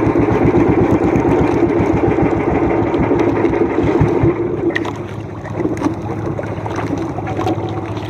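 Engine of a small motorized outrigger fishing boat running under way with rapid, even firing pulses, then throttled back to a quieter, steadier idle a little after four seconds in.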